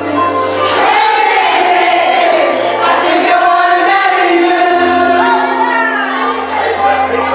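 Music: a song with a singing voice carrying a wavering melody over held low notes that shift every few seconds.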